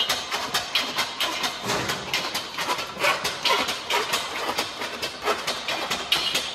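Powered Matthys sheet-metal shear cutting a curved sheet-metal panel along a marked line: a rapid, uneven run of sharp metallic clacks, several a second.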